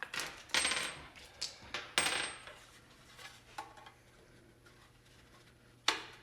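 Driver bits and plastic bit holders clicking and clinking as they are handled and set into a tool organizer bin. There is a quick run of clicks and clatter over the first two seconds, then a lull, then one sharp click near the end.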